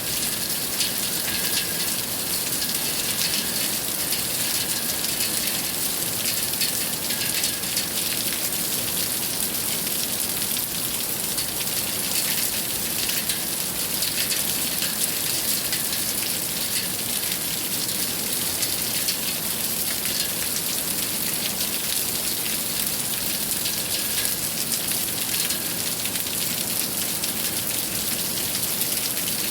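Steady rain falling, with many individual drops ticking on surfaces over an even hiss.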